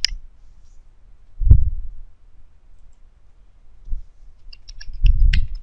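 Computer keyboard typing: a run of quick key clicks near the end, after a single click at the start. A dull low thump about a second and a half in is the loudest sound.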